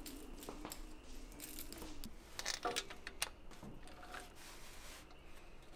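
Faint scattered small clicks and light rustling of hands handling small metal parts.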